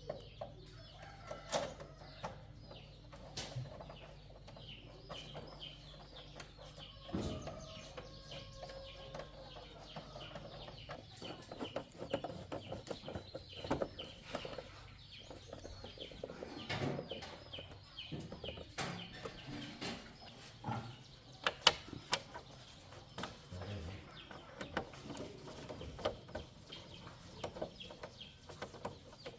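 Chickens clucking, with scattered sharp clicks and knocks throughout. A low hum drops away about a third of the way in.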